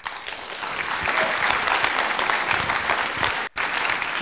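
Audience applause, many hands clapping in a dense, even patter that swells over the first second and then holds, with a split-second cutout about three and a half seconds in.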